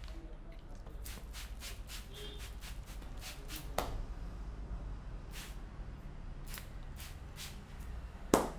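Hands working through hair and over the scalp in a head massage, a run of short rustling strokes, with a sharp crack near the end.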